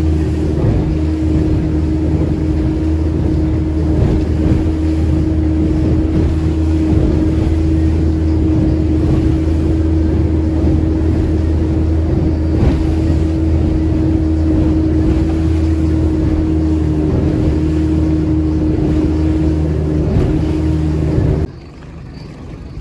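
Fishing boat's engine running steadily under way, a constant drone, cutting off abruptly near the end.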